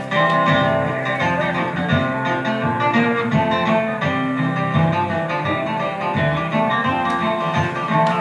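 A live band playing an instrumental passage with an acoustic guitar picked over bass and other instruments.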